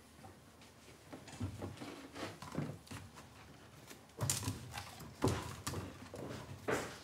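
Irregular light knocks and clatter of kitchen work at a wooden counter, utensils and dishes being handled, with a few louder knocks in the second half.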